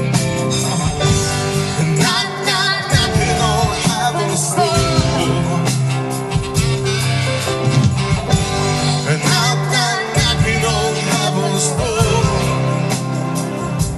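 Live band playing a rock song at a sound check, a voice singing over guitar and a driving beat.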